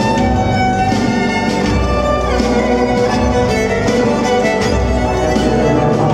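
Live instrumental music: a violin plays a melody of held notes, some sliding down in pitch, over guitar and low rhythmic accompaniment.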